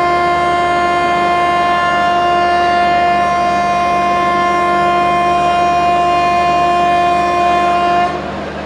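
Air horn of a WAM4 electric locomotive sounding one long, steady blast of about eight seconds on a single pitch, cutting off near the end.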